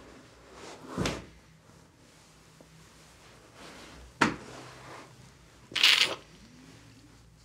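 A man sobbing quietly: three sharp, catching breaths, the last one about six seconds in a longer, noisier sniff. A faint whimper follows it.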